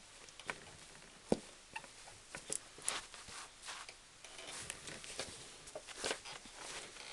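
Leather boat shoes moved about on a foot, making irregular soft taps, knocks and scuffs. There is a sharper knock about a second in, and longer scuffing a little after the middle.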